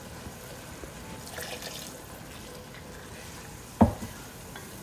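Wooden spoon stirring wet rice, chicken and sausage in an enamelled Dutch oven, with a steady wet sloshing of the freshly added water, which is deglazing the bottom of the pot. A single sharp knock sounds about four seconds in.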